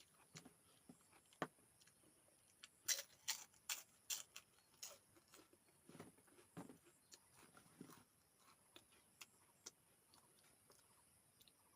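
Close-up eating sounds: a quick run of sharp, crisp crunches about three seconds in, then softer scattered chewing and mouth clicks.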